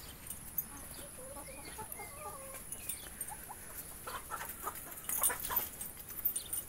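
Hens clucking faintly in a few short calls, followed by rustling and sharp knocks as the phone brushes through fig leaves and branches, the loudest knock a little past halfway.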